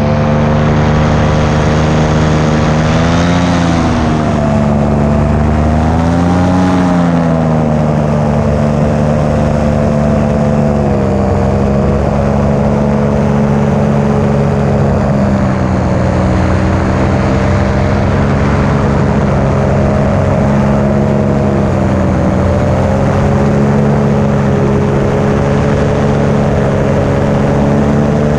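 Paramotor engine and propeller running steadily and loudly close by. The engine note rises and falls briefly twice, about three and six and a half seconds in, and dips slightly a couple of times later.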